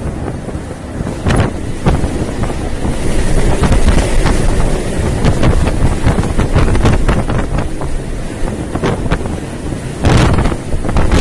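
Strong wind buffeting the microphone at sea, in gusts over a steady low rumble, loudest around the middle and in a sharp gust near the end.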